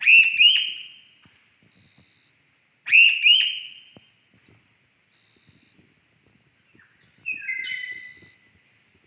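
Bird calls: two loud calls about three seconds apart, each a quick pair of sharp whistled notes, then a softer call of notes stepping down in pitch near the end, over a faint steady high drone.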